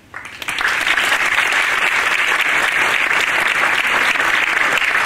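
An audience applauding a speaker's introduction: many hands clapping, rising a moment in and holding steady.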